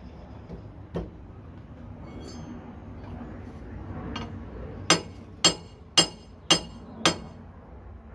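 Five sharp metal-on-metal clinks, about two a second and each ringing briefly, as a steel wrench strikes the steel hydraulic fittings of a railroad tie remover. A single duller knock comes about a second in.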